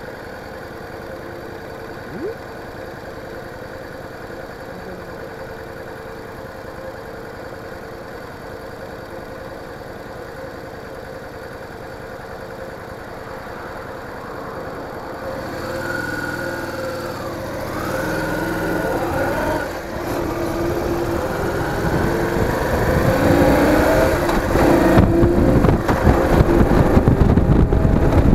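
Yamaha DragStar Classic's V-twin idling steadily, then pulling away about halfway through and accelerating, its pitch rising and the sound growing louder toward the end.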